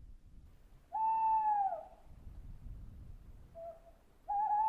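Owl hooting: two long hoots, each dropping slightly in pitch as it ends, with a short faint note between them.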